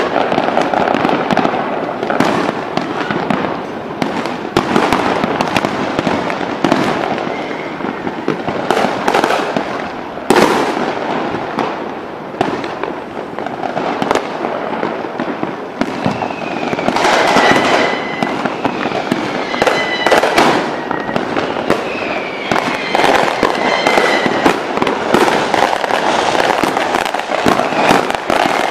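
Fireworks display: a continuous barrage of aerial shells bursting, with crackling and dense overlapping bangs. A few whistling tones sound partway through.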